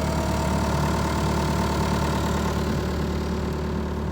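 Diesel engine of a Hitachi EX120-2 excavator running steadily at idle.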